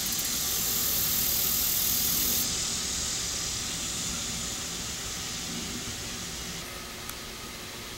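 Steady broad hiss of outdoor noise, with no distinct events. It is brightest for about the first two and a half seconds, then turns duller, and dulls again near the end.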